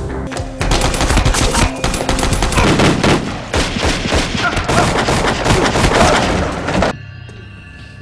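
Rapid automatic gunfire: a sustained firefight of many closely spaced shots lasting about six seconds, which cuts off abruptly near the end.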